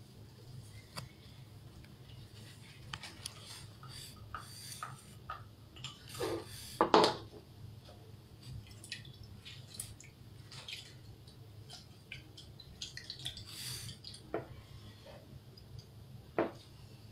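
Small plastic cups, a measuring spoon and containers being handled on a tabletop tray: scattered light clicks, taps and scrapes, with one louder clatter about seven seconds in.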